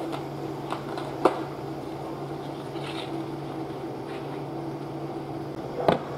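Steady machine hum in a small room. A sharp click sounds about a second in and a knock near the end, as a rubber stamp is pressed onto a stamp-rally card.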